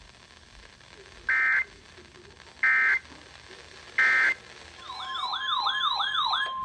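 Emergency Alert System data signal: three short two-pitch bursts of the end-of-message code, about 1.3 seconds apart, closing a weather radio alert. Then, near the end, a fast warbling siren-like alert tone over a steady tone near 1 kHz, announcing the next warning.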